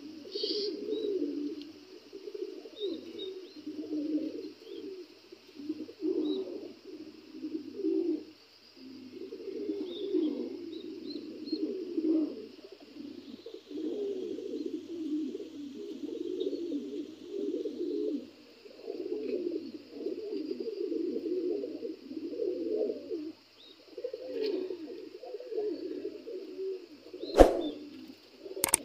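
Lahori pigeons cooing over and over, low rolling coos with only short pauses between them. A sharp knock sounds near the end.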